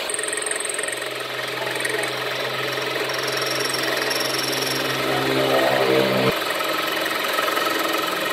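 A motor running steadily with a low hum. Its pitch rises in the second before it cuts off abruptly about six seconds in, and a fainter steady machine hum continues after.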